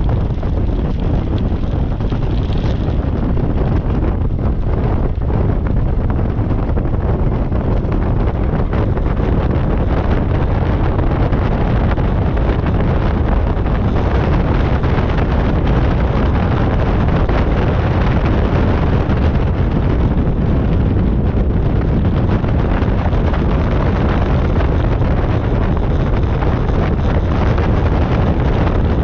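Light aircraft's piston engine and propeller running steadily while the plane taxis on grass, heavily mixed with wind buffeting the microphone.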